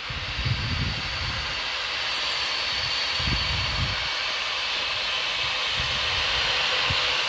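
Steady steam hiss from the BR Standard Class 7 steam locomotive Britannia, slowly growing louder, with irregular low rumbles underneath.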